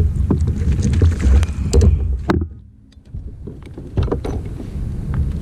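Water and handling noise on a plastic fishing kayak: a low rumble with many short knocks and clicks against the hull and gear. It drops out almost entirely for about half a second, roughly two and a half seconds in, then resumes.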